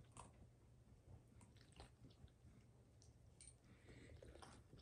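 A dog chewing on a chew, faint and sparse: a few soft, scattered clicks over a low hum.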